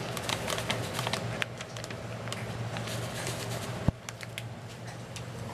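Foil sachet crinkling and dry premix powder pouring into a small pan in irregular little rustles and clicks, over a steady low hum. One sharp click about four seconds in.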